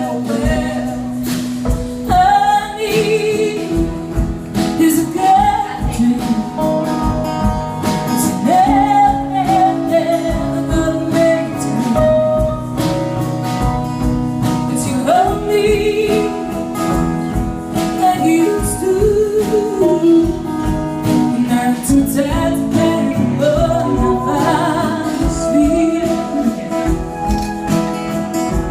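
Live folk band performing a song: male and female voices singing over strummed acoustic guitar.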